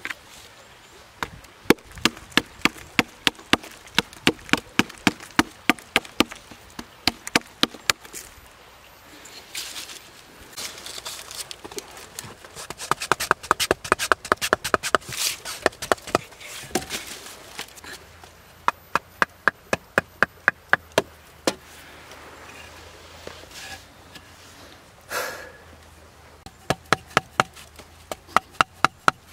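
Runs of sharp, quick knocks like wood being chopped with a blade, three to five strikes a second, with short pauses between runs.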